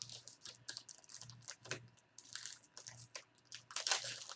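Crinkling and rustling of a foil trading-card pack and cards being handled: an uneven run of small crackles, busiest near the end.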